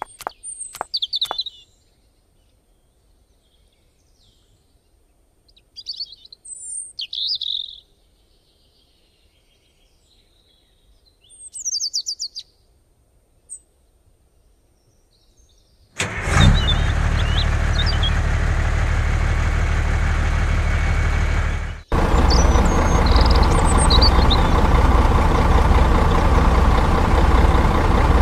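Birds chirping in a few short bursts. About halfway through, a loud, steady vehicle engine sound starts, cuts out for a moment and then runs on.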